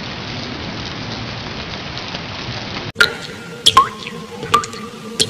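Sound-effect track of an animated outro: a steady rain-like hiss for about three seconds that cuts off suddenly. It is followed by a low steady hum with several sharp water-drop plinks, each sliding in pitch.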